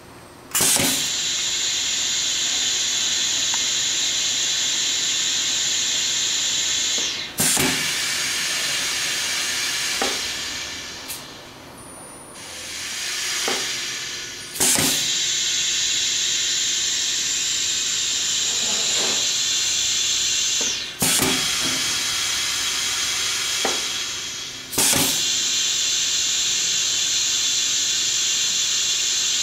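Compressed air hissing steadily from a Geyer Fillmaster 5000 pneumatic piston filler as its air cylinder strokes, broken every few seconds by a sharp click as its air valve switches. The hiss dips and swells back once about midway through.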